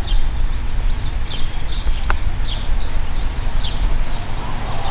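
Outdoor lakeside ambience: short, high chirps falling in pitch, repeating a few times a second, over a steady low rumble.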